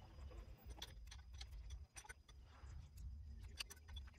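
Faint, irregular light clicks and taps of hand-tool work, over a low steady rumble.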